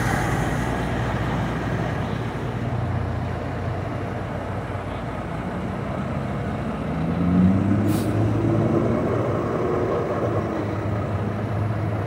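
Blue Bird CSFE bus engine pulling away: a steady low running note, then rising in pitch about seven seconds in as the bus accelerates off.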